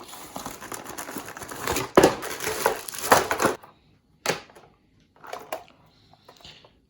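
Rustling and crinkling of packaging being handled, dense for the first few seconds, then a few short knocks and rustles.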